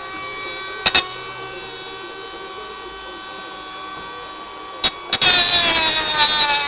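Milling machine spindle running with a steady whine, with two sharp clicks about a second in. Near the end two more clicks, then the sound turns much louder and rougher with its pitch sagging slightly as the cutter bites into the ukulele body under load.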